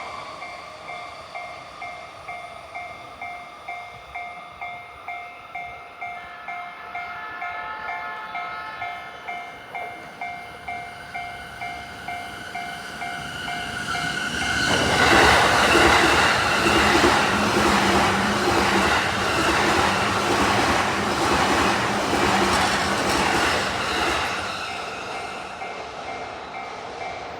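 A Japanese level-crossing alarm bell rings with a steady two-tone clang about twice a second. About fifteen seconds in, a train passes over the crossing, its wheels clattering loudly over the rail joints and drowning the bell for some ten seconds. The train noise then eases and the bell rings on.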